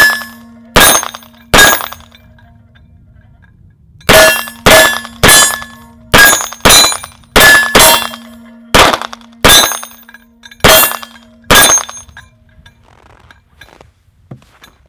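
Walther PPQ Navy SD 9mm pistol firing: three quick shots, a pause of about two and a half seconds, then a string of eleven more at an uneven pace, with a faint steady low tone under the shooting.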